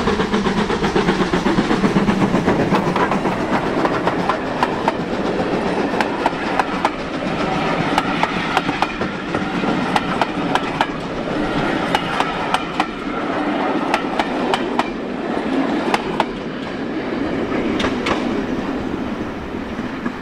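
Passenger coaches of a steam-hauled train rolling past close by, the wheels clicking over the rail joints, with the locomotive's rapid exhaust beats heard over them for the first few seconds before they fade.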